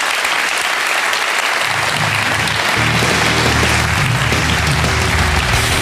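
Studio audience applauding steadily. About two seconds in, music with a low, rhythmic bass line comes in under the clapping.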